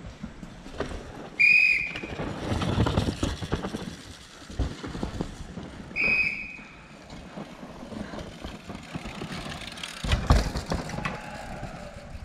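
Two short, high whistle blasts about four and a half seconds apart, a trackside whistle warning that a rider is coming, over the dirt-track noise of downhill mountain bikes: tyres and rattling bikes, with a loud rush about ten seconds in.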